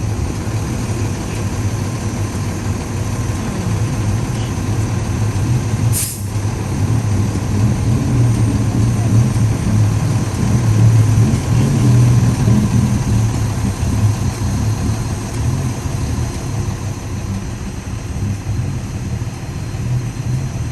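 A heavy vehicle's engine running close by, growing louder for a few seconds near the middle, with one short air-brake hiss about six seconds in.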